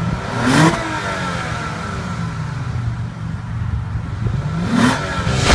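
Lexus GS350 F Sport's 3.5-litre V6 idling, heard at the exhaust tips, with two short throttle blips: one about half a second in and another near the end, each rising in pitch and dropping back to idle.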